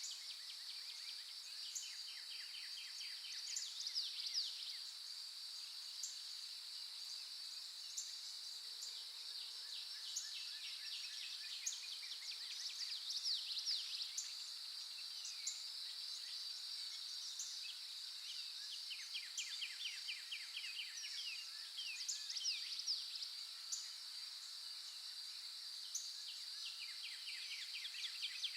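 Dawn forest chorus: songbirds sing rapid trills and quick down-slurred notes now and then, over a steady high-pitched insect drone.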